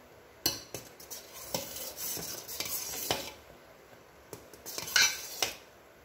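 Metal spoon stirring simmering milk in a steel pot, scraping and clinking irregularly against the sides and bottom, with a few sharper clinks. The milk is being stirred often while it reduces, to keep a cream skin from forming.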